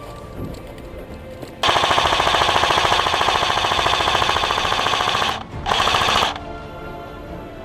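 Airsoft electric gun firing on full auto: a long burst of about three and a half seconds, then a short burst of about half a second.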